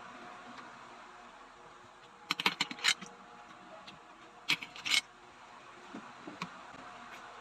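Kitchenware clinking: two short clusters of sharp clinks about two seconds apart, then a few lighter taps, over a steady low hiss.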